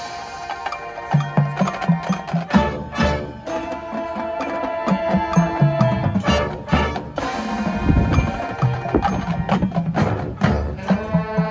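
High school marching band playing its field show: sustained wind chords over sharp percussion strikes, with rhythmic low drum hits and mallet percussion from the front ensemble.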